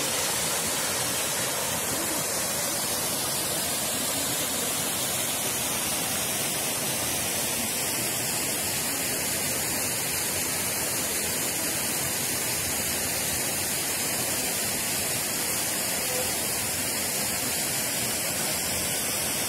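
Small waterfalls falling over rock into pools: a steady, even rush of water.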